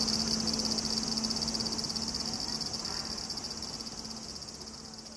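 Summer cicadas droning steadily, a continuous high buzz with a fine rapid pulse, over a low steady hum. The sound gradually fades out.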